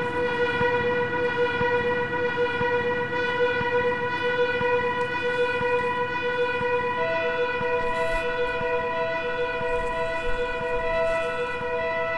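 A sustained drone of steady held tones rich in overtones, over a rough lower rumble; a second, slightly higher tone joins about seven seconds in and holds alongside the first.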